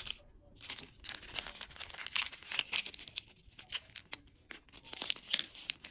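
Thin plastic wrapper packet crinkling and rustling as it is handled, in quick, irregular crackles.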